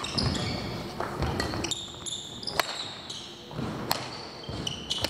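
Badminton rally: a string of sharp racket hits on the shuttlecock about every one to one and a half seconds, with short high sneaker squeaks and footfalls on the wooden court floor of a large hall.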